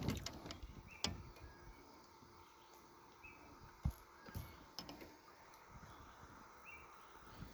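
Faint, scattered clicks and light knocks from handling fish and tackle in a kayak, with a few short high chirps in the background.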